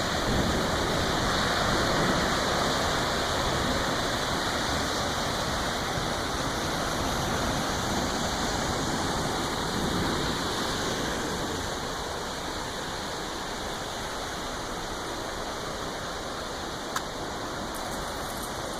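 Flooded stream rushing, a steady wash of fast-moving water that eases off slightly about halfway through. A single short click near the end.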